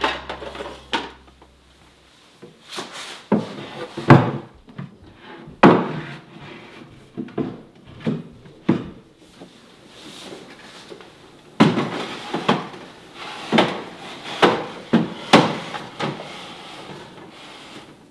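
Clear plastic multi-drawer organizer being handled: its small drawers click and slide, and the box knocks against a wooden cabinet shelf as it is set in place. Sharp clicks and knocks come in scattered clusters, busiest in the second half.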